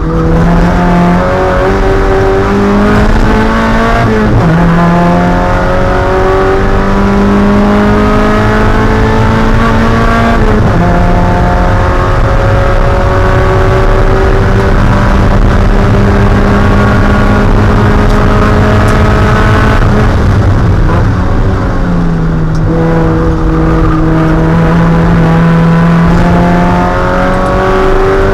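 Spec Miata's 1.8-litre four-cylinder engine running hard under race load. Its pitch climbs slowly and drops sharply at gear changes about four and ten seconds in, then twice more a little past the middle.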